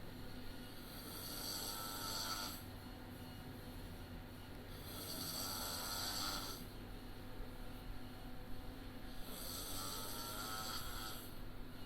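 A sleeping man snoring: three long snores, roughly every four seconds, over a steady low hum.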